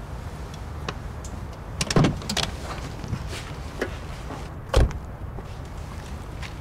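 A car door opens with a clack about two seconds in and is shut with a heavy thud just before five seconds, over a steady low rumble.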